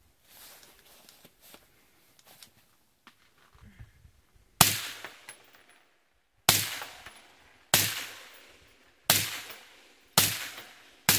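Suppressed AR-15 short-barreled rifle with a YHM Phantom 762 Ti titanium suppressor firing five single shots one to two seconds apart, each crack followed by an echo that dies away over about a second. Before the first shot, about four and a half seconds in, there are only a few faint handling clicks.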